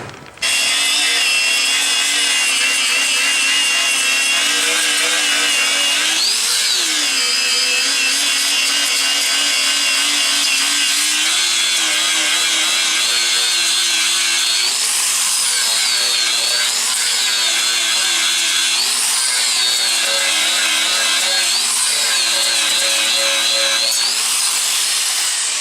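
Electric grinder starting up about half a second in and running continuously as it grinds down welds on steel. Its pitch dips and rises again every second or two through the second half.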